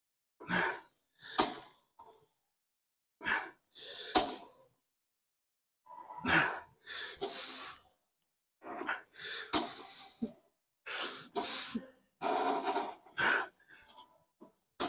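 A man breathing hard through a set of machine shoulder presses: forceful exhales and gasps come in short bursts, about one per rep, with gaps between them. A few sharp clicks fall among the breaths.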